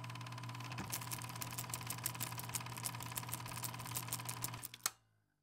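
Film projector clatter sound effect: a steady low hum with rapid, even clicking of the film running through, ending on one sharper click before it cuts off.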